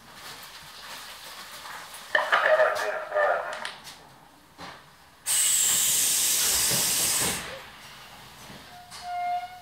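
Suburban electric train standing at a platform: a sudden loud hiss of compressed air from its pneumatic system starts about halfway through and cuts off after about two seconds. Near the end a short pitched tone sounds.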